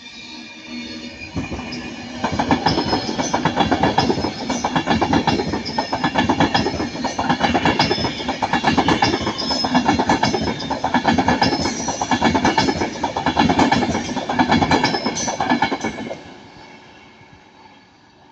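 Avanti West Coast Class 390 Pendolino electric train passing, its wheels clattering over the rail joints in a steady, even rhythm, with brief high squeals on top. The sound builds about two seconds in and dies away near the end.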